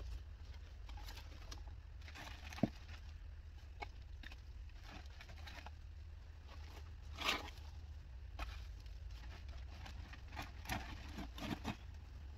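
Black plastic trash bag rustling and crinkling in short bouts while old roofing debris is picked up and dropped in, with scattered light knocks of debris, one sharp knock about two and a half seconds in.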